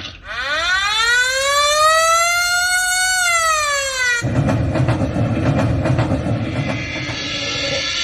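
Yamaha PSR-SX920 keyboard playing sound-effect samples from its drum kits. A siren-like pitched tone glides up and back down over about four seconds, then cuts off sharply into a dense, rattling noise.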